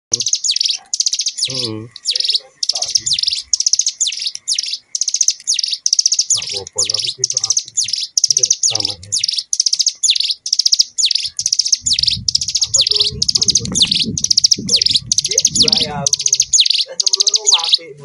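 Caged mountain songbird singing a fast, unbroken song of short, rapid trilled phrases, about two to three a second.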